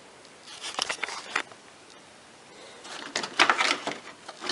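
A cover in a car's engine bay being handled and fitted back into place: two spells of short clicks and rattles, the second louder, as it is hooked under and seated.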